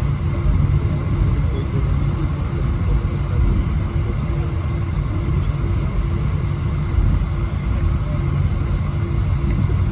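Steady engine and airflow drone heard inside the cabin of an Airbus A320-231 with IAE V2500 engines: a constant low rumble with a steady hum and a faint higher tone.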